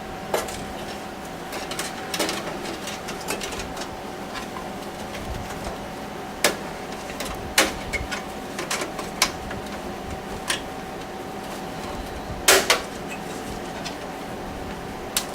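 Thin sheet-metal I/O shield being handled and pressed into the back opening of a PC case: scattered sharp metallic clicks and knocks, the loudest about twelve seconds in. A faint steady hum runs underneath.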